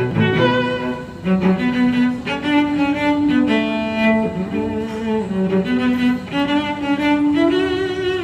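Background music played on bowed strings, a melody of held notes changing every half second or so.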